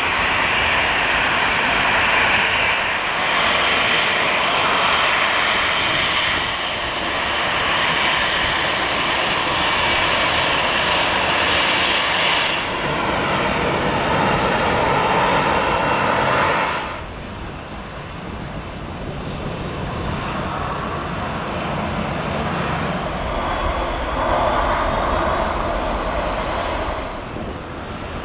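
Boeing 737-700's CFM56 turbofan engines whining and rumbling at low power as the airliner taxis past on the runway. The sound drops suddenly about halfway through and carries on quieter, swelling briefly again near the end.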